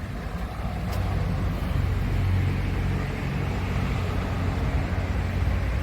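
Steady rumble of freeway traffic passing below a footbridge, with no single vehicle standing out.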